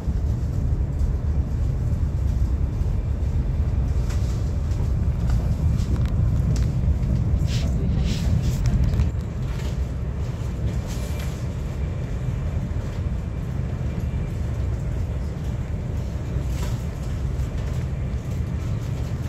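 Steady low rumble of the Whoosh high-speed train running at about 295 km/h, heard inside the passenger cabin, with a few faint clicks and rattles; it becomes a little quieter about nine seconds in.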